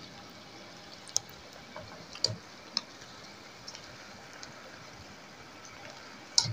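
Samosa rolls deep-frying in hot oil with a faint, steady sizzle, and a few light clicks as a wire-mesh skimmer stirs them against the wok.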